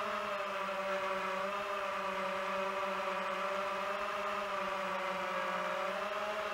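FPV quadcopter drone's motors and propellers whining steadily in flight, the pitch wavering slightly up and down as it manoeuvres.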